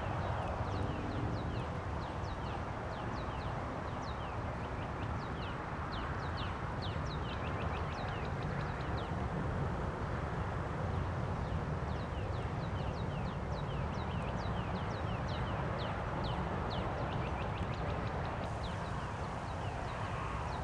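Birds chirping: rapid high, thin notes that fall in pitch, several a second, over a steady low rumble of wind on the microphone.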